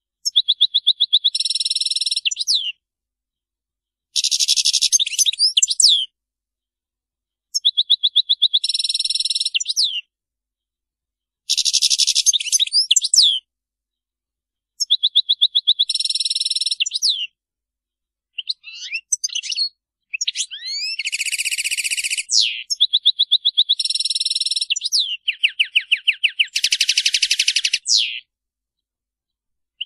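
European goldfinch singing: a run of fast, twittering song phrases of two to three seconds each, built of rapid trills and buzzy notes and separated by short silences, with a longer unbroken stretch of song near the end.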